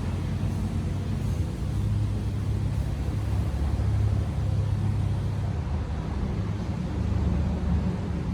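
A steady low rumble that holds level throughout, with no distinct calls or knocks standing out.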